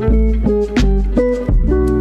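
Instrumental background music: a run of pitched notes over a strong bass line.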